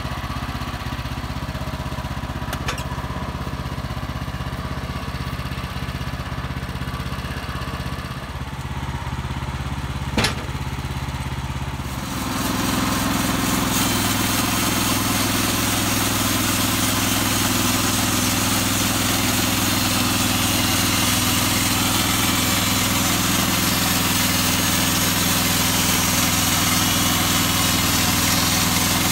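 WoodMaxx portable band sawmill's engine running steadily. About twelve seconds in, a louder, steady hiss of sawing joins it as the band blade cuts into a shortleaf pine log, shortly after a single sharp knock.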